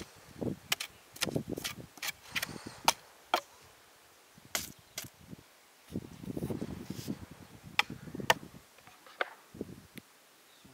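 A run of sharp, irregular clicks and knocks, several in quick succession over the first few seconds and a few more spaced out later, with duller thuds and rustling between them.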